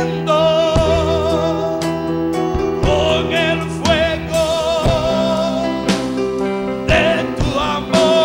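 Gospel worship song: a voice sings long notes with a wide vibrato over sustained keyboard chords and bass, with a soft beat about once a second.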